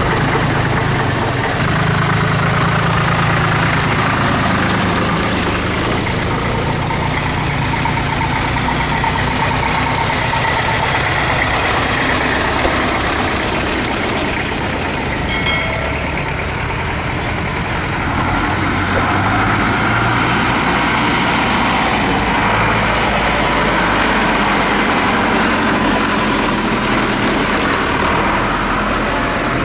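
Tractor engines running steadily, their low note shifting in pitch now and then, with a brief high tone about halfway through.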